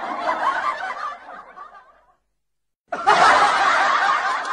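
Crowd laughter from a canned laugh track. It fades out about two seconds in, drops to dead silence for about a second, and starts again sharply about three seconds in.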